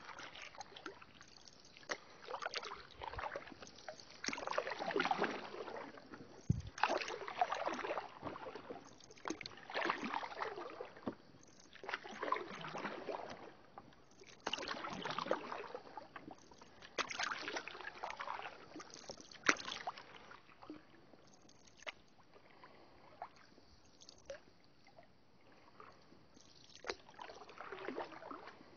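Wooden canoe paddle pulling through calm water in a steady rhythm, a swishing stroke about every two and a half seconds, with a few sharp knocks. The strokes ease off for a few seconds a little after the middle, then pick up again near the end.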